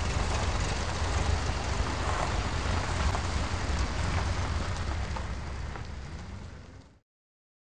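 Pickup truck engine running, a steady low rumble under a rough hiss, fading out and stopping about seven seconds in.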